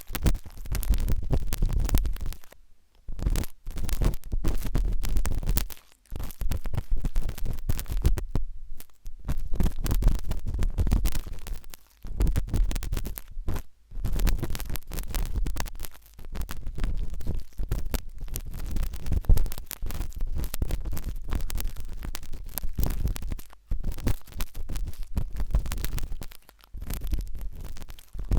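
Pointed wooden toothpick scratching and scraping inside an ear: close, crackly scratching with a deep rumble. It comes in stretches of a few seconds separated by short pauses.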